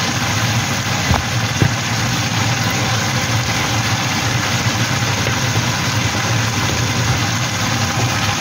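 Green beans and minced pork sizzling steadily in a wok over a constant low hum, with two light taps between one and two seconds in.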